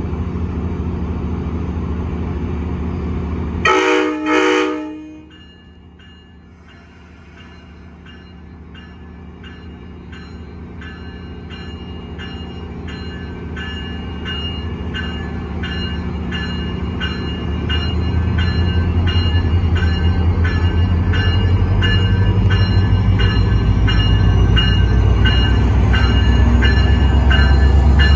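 VRE passenger diesel locomotive approaching, its low engine rumble growing steadily louder. Its horn sounds a short two-part blast about four seconds in, and a bell rings in a steady, regular rhythm through the rest.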